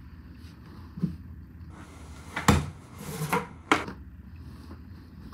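Clothes being handled and moved around: a soft thump about a second in, then two sharp knocks with rustling between them.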